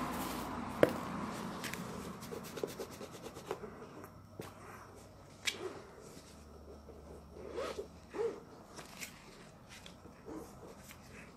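Thread being pulled through the sole and upper of a sneaker during hand-stitching: a rasping, zipper-like pull over the first few seconds with a sharp click about a second in, then scattered scrapes and clicks as the stitches are drawn tight.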